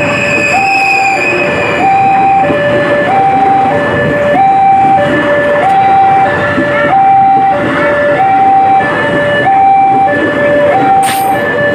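Level crossing warning alarm sounding a repeating high-low two-tone, about one cycle every second and a quarter, over the noise of a KRL electric commuter train passing. A brief sharp sound near the end.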